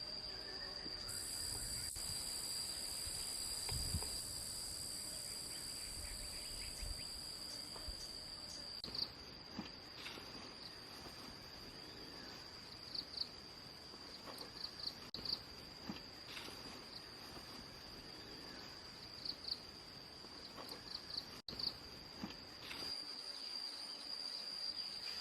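Forest insects calling steadily: one continuous high-pitched trill throughout, joined by a second, even higher buzzing insect for several seconds about a second in and again near the end. A few faint soft taps and rustles.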